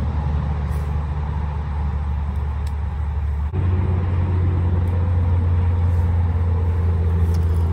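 A steady low hum that steps up slightly in pitch and level about three and a half seconds in.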